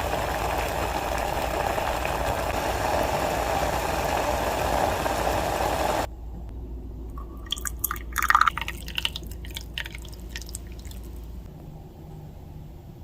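Tea liquid bubbling steadily on the heat for about six seconds, stopping abruptly. Then a few seconds of pouring and dripping with light clinks.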